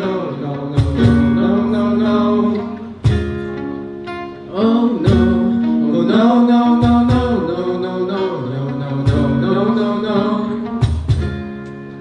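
Guitar-led song music in a wordless instrumental stretch, with a bending, voice-like melody line over held notes and a few sharp beats.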